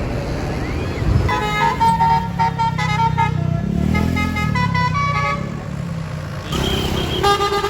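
Basuri multi-note 'telolet' bus horn playing a quick tune of short stepping notes for about four seconds, then one shorter held blast near the end. An engine runs underneath and revs briefly midway.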